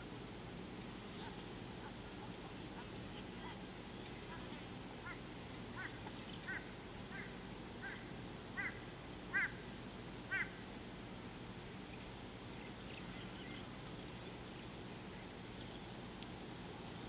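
Egyptian goose giving a run of about nine short, duck-like honking calls, about one every two-thirds of a second, the last few loudest. A steady low hum runs underneath.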